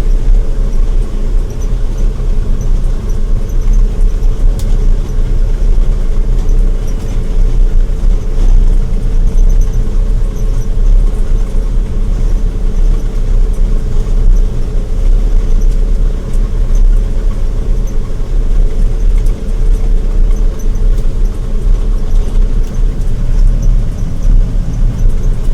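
Combine harvester running steadily under load while cutting beans: a continuous low rumble with a steady hum over it.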